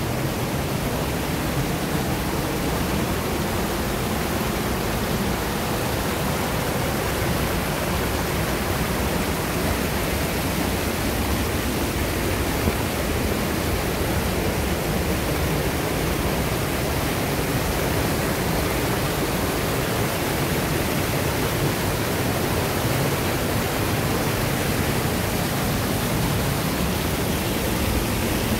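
A small waterfall rushing steadily over rocks: an even, unbroken rush of water.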